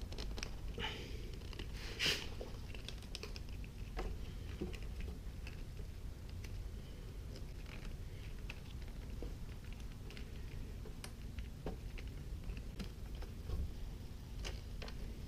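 Small scattered clicks and taps of plastic wiring connectors and cable being handled, with one sharper click about two seconds in, over a low rumble of handling noise on the microphone. The sounds come from the fuel controller's wiring harness being plugged into the throttle position sensor connector and routed along the frame.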